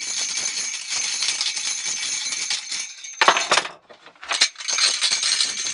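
Reproduction Viking-age iron horse rattles, loose rings on an iron frame, being shaken and jangling continuously. A sharper clash about three seconds in is followed by a brief pause, then the jangling resumes.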